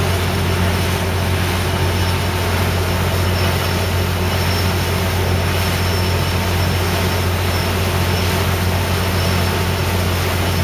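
Amtrak California diesel locomotive's engine running steadily at idle, a loud constant low drone with a faint steady whine above it.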